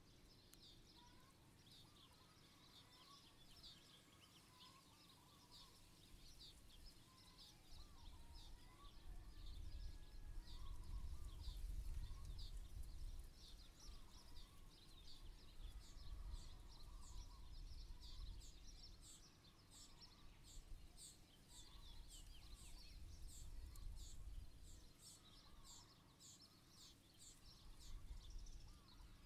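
Faint outdoor ambience of many small birds chirping and twittering, with short repeated high chirps and lower warbling calls, over a low rumble that swells and fades several times.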